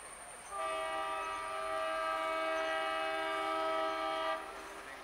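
An approaching train's locomotive horn sounds one long blast of about four seconds, starting about half a second in. The horn holds several steady tones at once.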